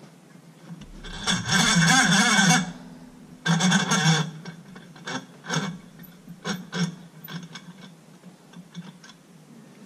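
A power tool runs in two bursts, about a second and a half and then half a second, with a wavering whir. Several short metallic clicks of tools and parts being handled follow.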